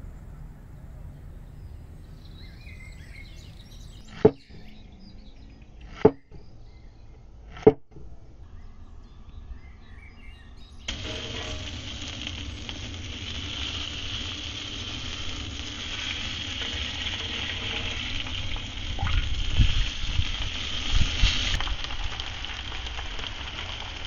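Food sizzling in a hot cast-iron pan, a steady hiss that starts suddenly about halfway through. Before it, a low background hiss with three sharp clicks, less than two seconds apart.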